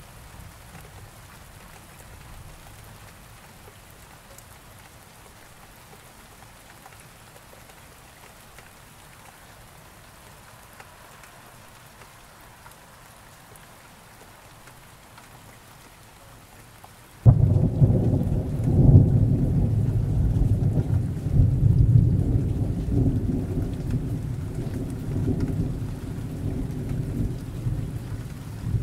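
Steady rain falling, then about two-thirds of the way through a sudden loud clap of thunder that rolls on as a long low rumble, slowly easing off.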